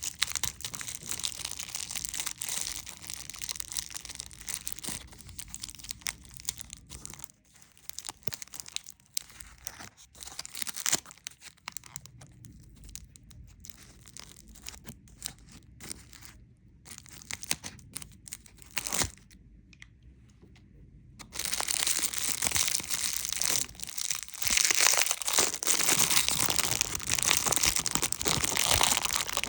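Candy wrappers crinkling and tearing as they are handled and opened. The sound is a dense crinkle at first, thins to scattered crackles through the middle, then comes back louder and denser about two-thirds of the way through.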